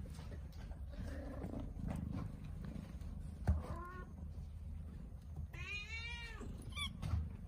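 A cat meowing: a short call about halfway through, then a longer meow that rises and falls, and a brief cry right after it. A sharp knock comes just before the first meow, over a steady low rumble.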